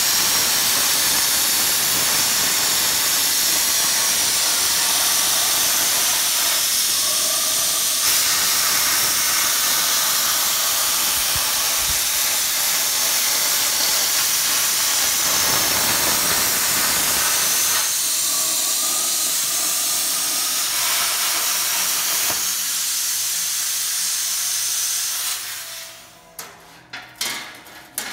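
Homemade plasma cutter cutting a circle in steel sheet: a loud, steady hiss of the arc and air jet that stops about 25 seconds in, followed by a few short metallic knocks.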